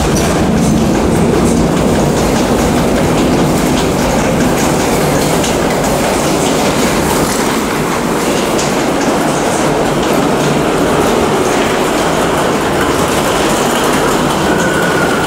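New York City subway train running on the track: a loud, steady rumble and rattle of wheels and car. A faint high wheel squeal comes in near the end.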